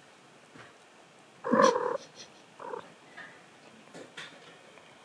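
A cat mews once, short and loud, about a second and a half in, then a quieter mew, with a few faint ticks near the end.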